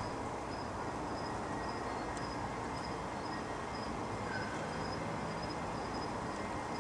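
Steady low background noise, with a faint high-pitched chirp repeating about twice a second throughout.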